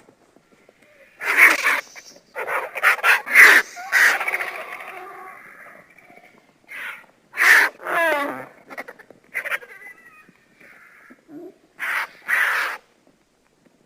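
Vulture calls used as the sound of the pterosaur Quetzalcoatlus: a string of hissing, rasping screeches in irregular bursts with short gaps. About eight seconds in, one call falls in pitch with a rattling quaver.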